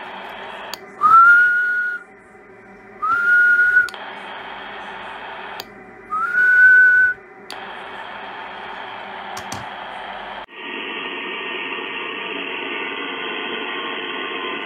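Three short whistled notes, each sliding up a little and then held, whistled into a uSDR HF QRP transceiver's microphone as a transmit audio test, over steady shortwave receiver hiss. About two-thirds of the way through, the hiss cuts over abruptly to a different, fuller band noise from a radio.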